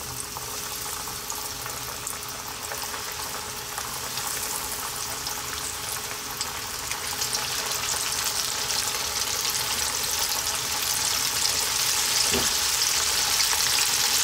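Corn-flour-dusted fish pieces deep-frying in hot oil in a wok: a steady sizzle with fine crackling that grows louder as more pieces go in.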